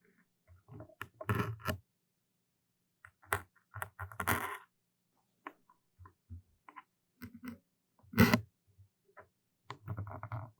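Close-miked ASMR trigger sounds: irregular short scratchy rubs and sharp clicks with quiet gaps between them, the loudest a brief burst about eight seconds in.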